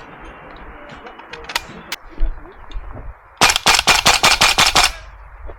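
Gas blowback airsoft rifle firing: a couple of single shots about two seconds in, then a full-auto burst of about ten shots, roughly seven a second, lasting about a second and a half.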